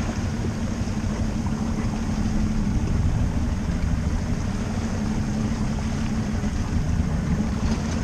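Boat engine running steadily at low speed, a constant low hum.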